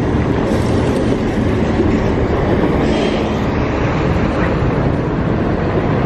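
Loud, steady rumble of a downtown street, with the running clatter of a rail vehicle on city tracks. It cuts off abruptly at the end.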